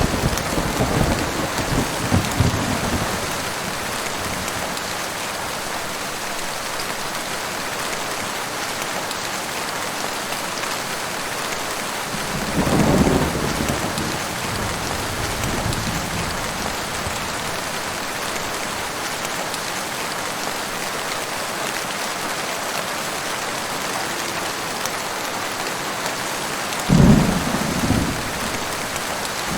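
Heavy rain falling steadily, with thunder rumbling three times: near the start, about halfway through, and a sharper clap near the end.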